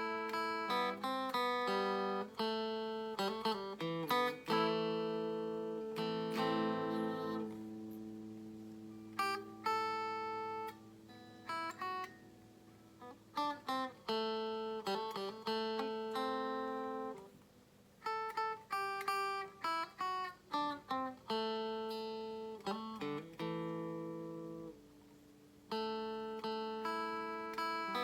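Donner DST1 Strat-style electric guitar played with a clean tone: picked single notes and chords that ring out and decay, with short pauses between phrases.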